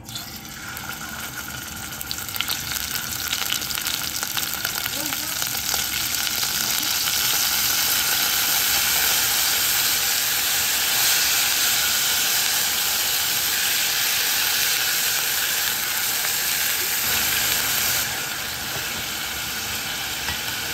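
Food frying in a hot pan: a steady sizzle with fine crackling, building over the first several seconds and dropping a little in loudness near the end.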